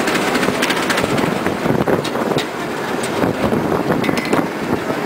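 Steam road locomotive running along pavement, heard from close behind: a steady rumble and rattle of wheels and running gear, with scattered sharp clicks and knocks.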